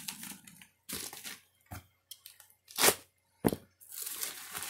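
Paper and plastic mail packaging crinkling and crackling as it is handled, with several sharp crackles and a longer rustle near the end.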